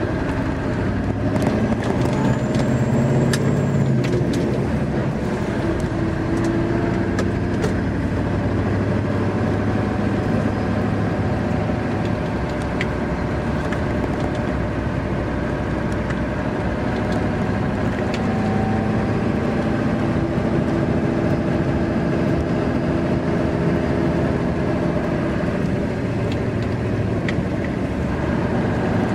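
Scania R500 V8 diesel truck engine running under way, heard inside the cab as a steady low drone with road noise, its pitch shifting a little now and then.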